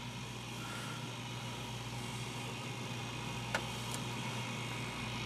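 Steady low electrical hum under a faint hiss, with one small click about three and a half seconds in.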